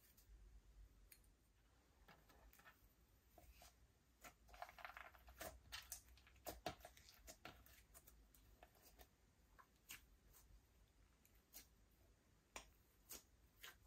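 Faint sticky clicks and small pops of clear glitter slime being squeezed and stretched by hand, busiest a few seconds in.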